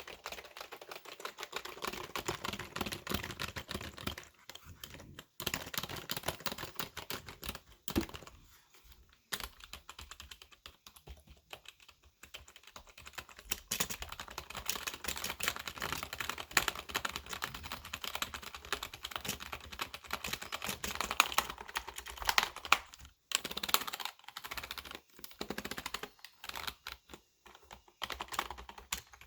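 Fast, aggressive typing on a computer keyboard: a dense run of key clicks, pausing briefly a few times.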